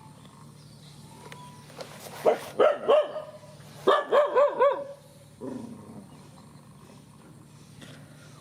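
A dog barking in two quick runs of short, high-pitched barks, three and then four, with one lower bark just after.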